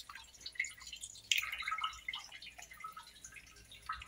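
Faint, irregular wet taps, slaps and drips from a pile of freshly caught guapotes on a wet concrete basin, some still alive and flopping, with a short burst of splats about a second and a half in.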